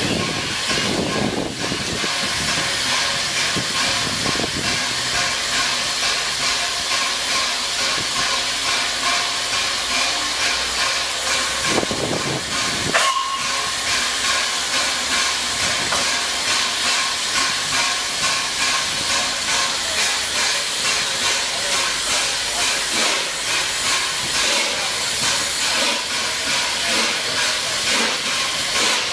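Three-cylinder Peppercorn A1 Pacific steam locomotive 60163 Tornado moving slowly past, its escaping steam giving a loud, steady hiss with a regular pulse beneath it. There is a single sharp knock about halfway through.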